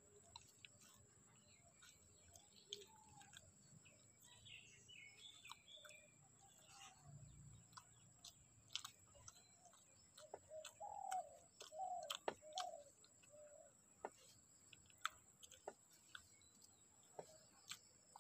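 Birds calling against a quiet background: faint high chirps about four to five seconds in, then a run of short arching calls about ten to thirteen seconds in. Faint scattered clicks of eating by hand run throughout.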